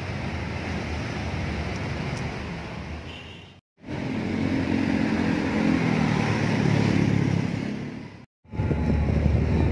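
Street traffic noise, a steady rumble of passing vehicles that swells in the middle, cutting out to silence twice for a moment.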